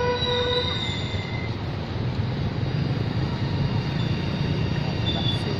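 Road traffic passing: cars and motorbikes going by in a steady low rumble. A short, flat-pitched tone lasting about a second sounds at the start.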